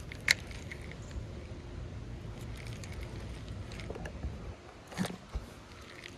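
Steady low outdoor rumble, likely wind on the microphone, with one sharp click shortly after the start and a softer knock about five seconds in.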